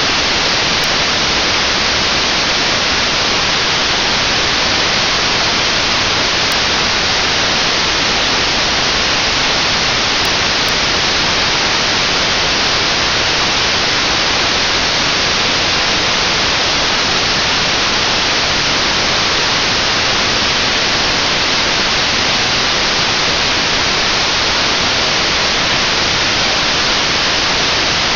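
Steady hiss of FM receiver noise from an RTL-SDR software radio tuned to NOAA 19's 137.1 MHz APT downlink. The satellite has not yet risen, so there is no signal, only static.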